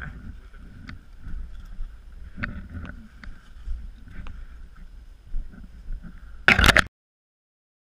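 Rumbling wind and handling noise on a body-worn microphone, with a few sharp clicks. About six and a half seconds in comes a short, loud burst of noise, then the sound cuts off.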